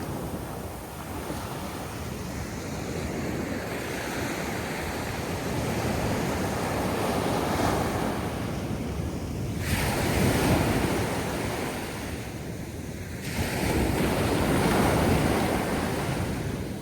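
Ocean surf: waves breaking and washing in, swelling in surges, the loudest two about ten seconds in and from about thirteen to sixteen seconds in, with wind buffeting the microphone.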